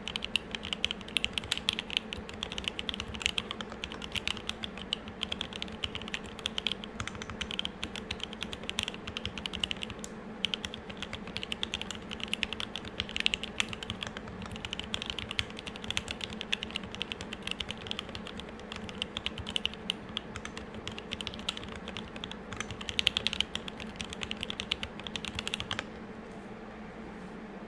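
Fast, continuous typing on a custom M65-A mechanical keyboard with a brass plate, lubed and filmed Tealios 67g linear switches and GMK keycaps: a dense run of key clacks that stops about two seconds before the end. A steady low hum runs underneath.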